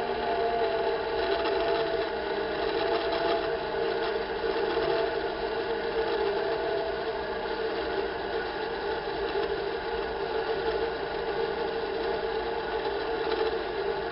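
Metal lathe running steadily while turning a steel bar, giving an even motor-and-gear hum with a faint wavering whine above it.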